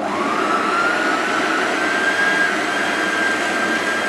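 Monsieur Cuisine Connect food processor starting up and running on speed 5, its blade mixing a thick, heavy Lebkuchen dough. A motor whine rises in pitch over the first second, then holds steady over a loud rushing churn.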